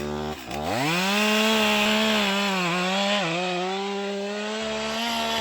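Chainsaw revved up from idle to full throttle and cutting into a felled tree's trunk, its note dipping briefly a couple of times under load. The cut is the release cut through the wood left behind a bore cut.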